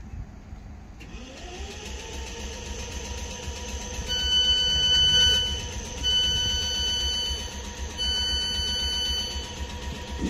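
Electric multiple unit standing at a platform: about a second in, a whine rises and settles into a steady hum, then the door-closing warning sounds three long beeps about two seconds apart, the signal that the doors are about to shut before departure.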